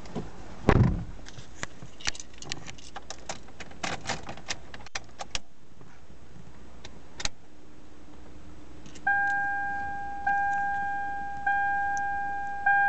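Keys jangling and clicking at the ignition of a 2011 Toyota Camry, turned to on with the engine not started. About nine seconds in, the dashboard warning chime starts dinging a little more than once a second, each ding fading.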